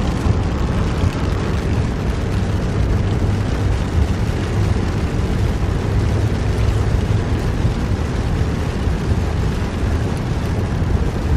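Steady rumbling noise of a car driving on a rain-soaked road in a storm, heard from inside the cabin: tyres on the wet surface and rain on the car.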